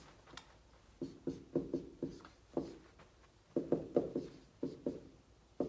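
Dry-erase marker writing on a whiteboard: a quick, irregular series of short taps and strokes as figures and symbols are put down, with a brief pause about midway.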